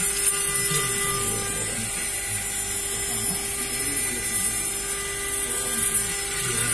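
800-watt CNC router spindle running steadily while milling aluminium, with a steady high hiss from the air-and-water coolant mist spray and a constant hum underneath.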